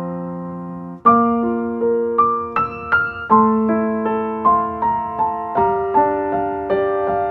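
Slow piano music, a run of single notes over held chords.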